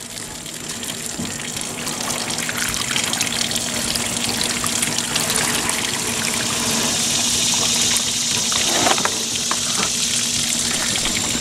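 Water pouring out of the neck of a plastic gallon jug and splashing onto a wooden plank, a steady pour that grows louder over the first several seconds.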